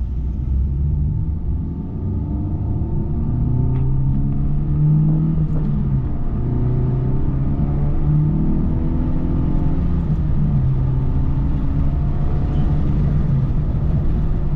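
Honda Civic Type R's turbocharged four-cylinder engine heard from inside the cabin, accelerating through the gears: the engine note rises, drops back at each shift, and rises again, over a steady road rumble.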